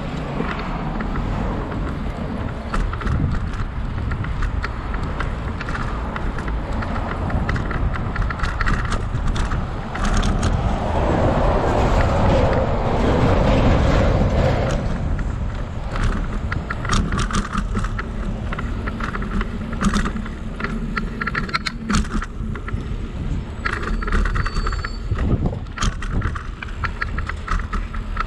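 Bicycle riding: a steady rumble of wind and tyre noise, with frequent small rattles and clicks from the bike, and a louder rush of noise about halfway through.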